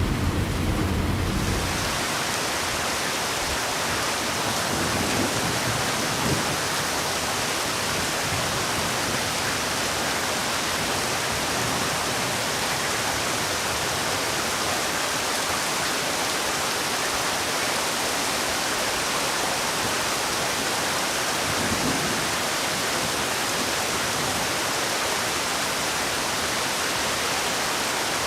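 Heavy rain falling in a steady, even hiss. A low rumble of thunder dies away in the first two seconds.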